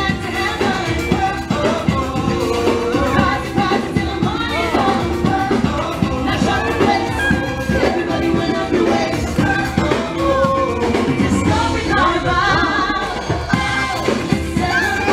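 Live street band playing upbeat dance music, with a lead singer over a steady drum beat.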